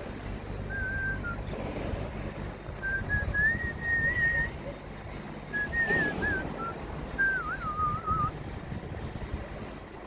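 Someone whistling a wandering tune in four short phrases, over wind buffeting the microphone.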